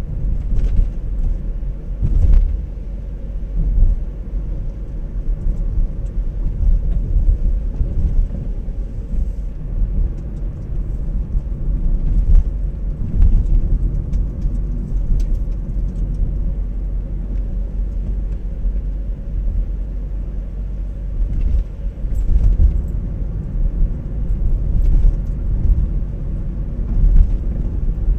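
Car rumble heard inside the cabin while driving at low speed: a steady low drone of engine and tyres on the road, with a few faint clicks here and there.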